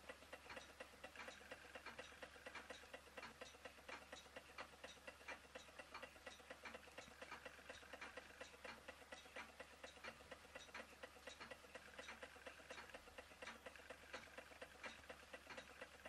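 Faint, fast, regular ticking, about four ticks a second, from small model Stirling engines running.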